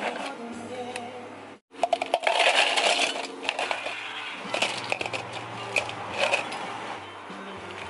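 Ice cubes clattering into a plastic cup: a dense run of clinks about two seconds in, then a few scattered clinks as liquid is poured over the ice.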